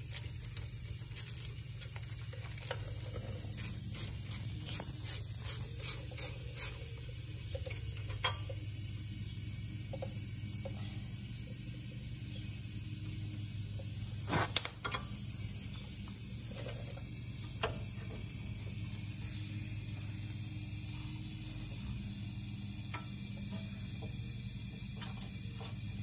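Scattered metallic clicks and clinks of hand work on a rear drum brake assembly while the parking brake cable is being removed. The clicks come every half second or so for the first several seconds, then sparsely, with one sharper click midway, over a steady low hum.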